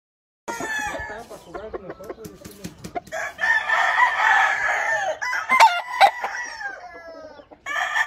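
Game roosters crowing: several long crows, overlapping one another and following shorter broken calls in the first seconds. Two sharp clicks come about six seconds in.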